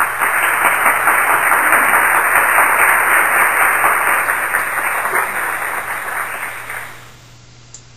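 Applause from a crowd, a sound-effect track laid in after a punchline, dying away about seven seconds in.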